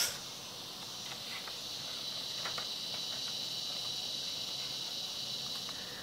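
A steady, high-pitched trilling of insects, like a rainforest cricket chorus sound effect, swelling over the first couple of seconds and then holding even.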